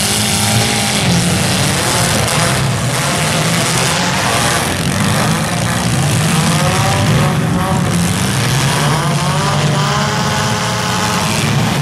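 Several compact demolition-derby cars' engines running and revving together, their pitch rising a few times in the middle and near the end.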